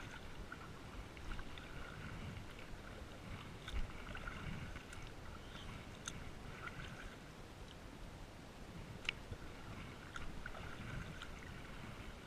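A double-bladed kayak paddle dipping and pulling through calm water in a slow, even rhythm of soft splashes. There are a few sharp clicks about 4, 6 and 9 seconds in.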